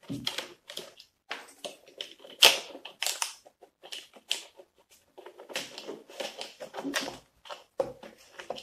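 Tin snips chewing into a stiff plastic clamshell package, a run of irregular snips and crackles, the loudest about two and a half seconds in. The snips make poor headway through the plastic.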